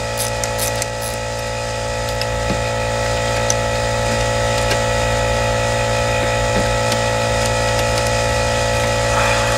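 A steady droning hum, with a few light clicks of a hand tool working a bolt on the engine. The clicks cluster in the first second.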